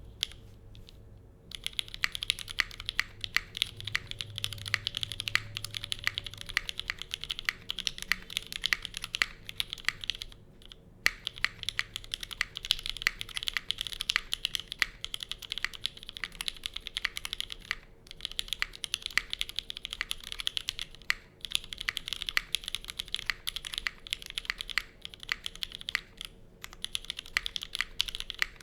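Fast, continuous typing on a Monokei Kei mechanical keyboard with lubed and filmed SP Star Meteor White switches on an aluminium plate and GMK Dandy keycaps. The typing starts about a second and a half in and pauses briefly a few times.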